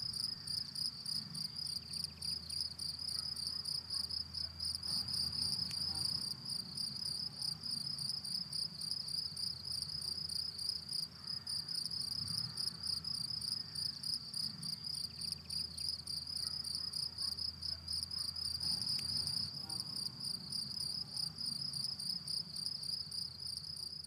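A cricket singing in the grass: a steady, high-pitched, rapidly pulsing chirp that goes on without a break.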